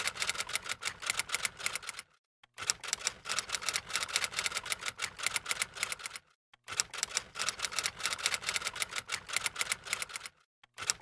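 Typewriter keystroke sound effect: a fast, continuous run of key clicks accompanying on-screen text being typed out. It breaks off briefly about 2, 6 and 10 seconds in, then starts again.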